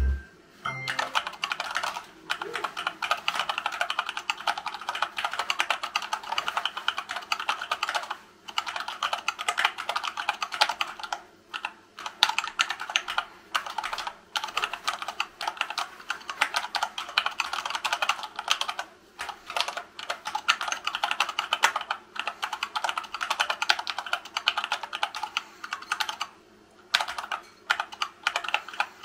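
Fast typing on a hand-wired Dactyl Manuform split keyboard in a wood-filament printed case, with silicone-lubed Gateron Brown tactile switches: a dense, continuous stream of keystrokes broken by brief pauses every few seconds.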